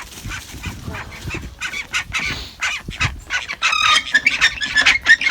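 Domestic ducks quacking in rapid, repeated calls, growing louder and busier about two-thirds of the way through.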